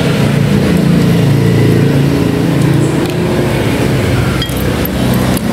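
A steady, loud low hum runs throughout, and a spoon and chopsticks clink a few times against a ceramic soup bowl near the end.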